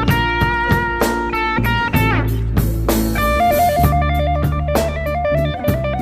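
Background rock music: electric guitar over a drum kit, with a quick back-and-forth guitar riff from about halfway through.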